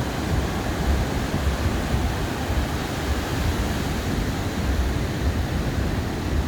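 Steady rush of surf breaking on a sandy beach, with a flickering low rumble of wind buffeting the microphone.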